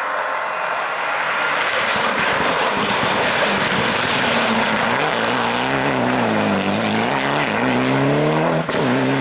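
Race car engine at full throttle, building as it comes close, then its pitch rising and falling several times as the driver works through the gears, with a brief drop in sound near the end at a gear change.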